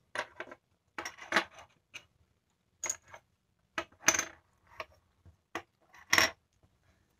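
Loose jingle shells clinking and rattling against one another and the table as they are handled, in short clattering bursts roughly every second, with sharper clicks as individual shells are set down.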